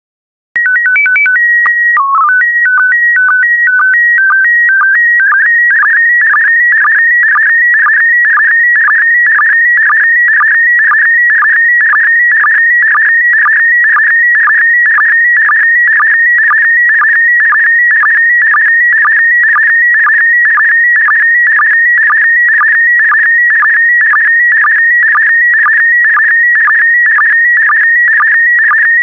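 Slow-scan TV (SSTV) signal in PD120 mode, the sound of an image being transmitted. It starts about half a second in with a short run of stepped tones and the header code, with a low tone at about two seconds. It then settles into a steady, loud buzzing warble that pulses about twice a second, each pulse one scan of the picture.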